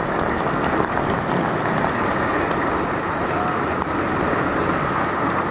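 Steady city street ambience, mostly road traffic noise.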